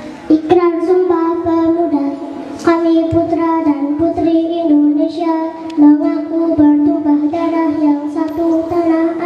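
A young girl singing into a microphone, holding long steady notes one after another.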